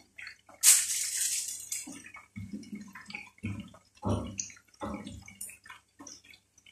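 Chicken pieces deep-frying in a pot of hot oil, sizzling with irregular crackles and pops, with a loud rush of spattering about half a second in. A few dull low thumps come around the middle.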